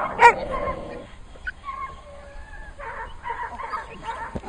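Young dogs on leads barking and yipping as a protection-training helper agitates them: one loud, sharp bark just after the start, then shorter yips and whines about three seconds in.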